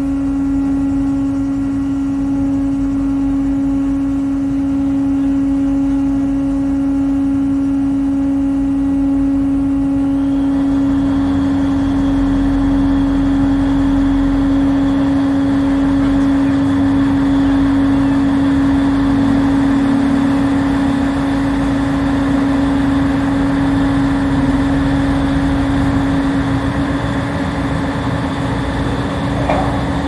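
Large car ferry's engines running: a steady deep hum over a low rumble, with a broader rushing noise joining about ten seconds in and staying.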